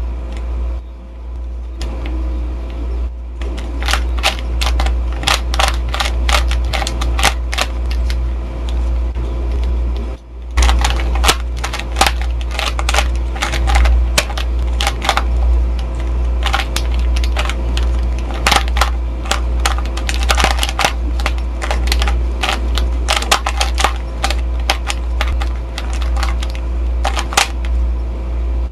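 Rubik's Cube layers being turned quickly by hand: rapid runs of plastic clicks as the faces snap round, pausing briefly about ten seconds in, during the last steps of a solve. A steady low rumble runs underneath.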